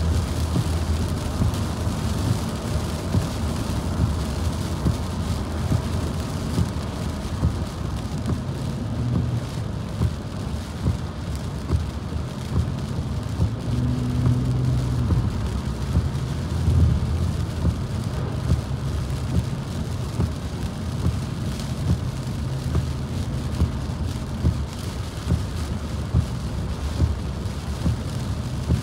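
A car driving on a wet highway, heard from inside the cabin: a steady low road and tyre rumble, with rain on the car sounding as an even hiss and frequent short taps.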